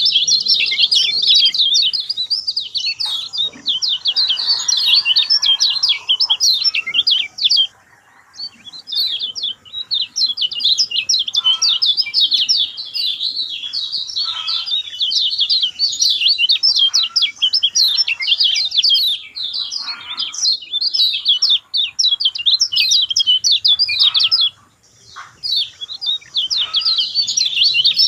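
Lemon-bellied white-eye (kecial kuning) singing a fast, continuous twittering song, with brief pauses about 8 seconds and 24 seconds in.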